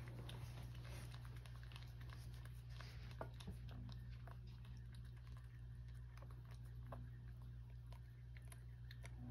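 Cat licking a paste treat from a shallow dish: faint, quick, irregular wet licking clicks, over a steady low hum.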